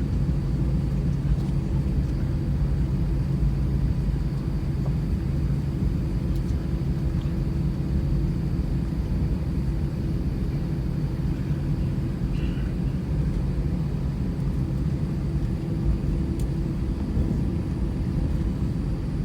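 Airbus A319 airliner heard from inside the passenger cabin: a steady, unbroken drone of engines and airflow, with a constant low hum running through it.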